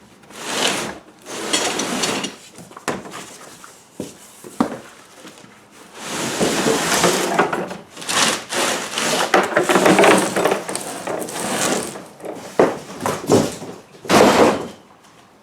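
Cardboard box being handled and lawn-tractor bagger parts pulled out of it: irregular scraping and rustling with a few sharp knocks.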